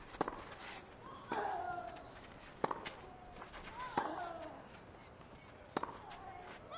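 Tennis rally: rackets strike the ball five times, about a second and a half apart. Several hits come with a player's short grunt that falls in pitch.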